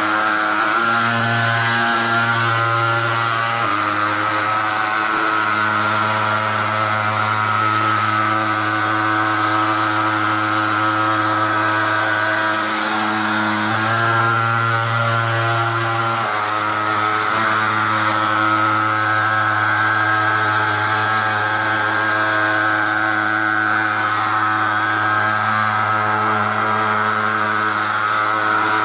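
Handheld thermal fogger's pulse-jet engine running continuously as it puts out fog, a loud steady drone whose pitch shifts slightly now and then.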